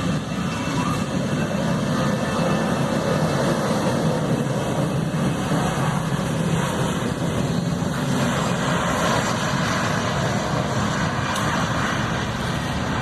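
Jet airliner engines running, a steady, loud, even noise with no rise or fall.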